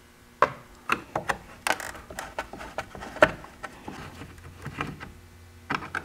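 Screwdriver unscrewing a screw in a car side-mirror housing: irregular light clicks and scrapes as the tip turns and shifts in the screw head.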